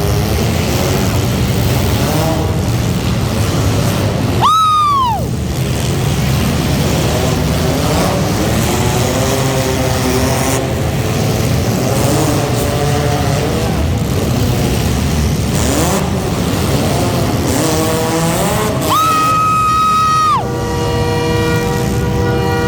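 Front-wheel-drive demolition derby cars' engines running and revving under a steady din. About four and a half seconds in, a high tone rises and falls sharply. Near the end a horn sounds, holding one note for about a second and a half, then a horn chord follows.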